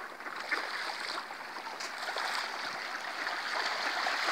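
Steady rush of flowing river water, with a few faint ticks and small splashes scattered through it.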